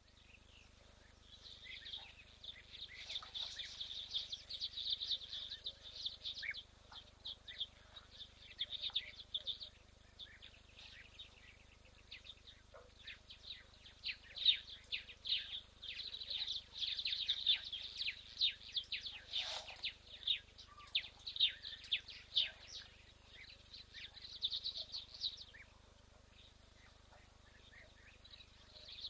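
Wild birds chirping and twittering in quick, high-pitched runs of calls, thinning out for a few seconds about a third of the way in and again near the end. A faint steady hum lies underneath.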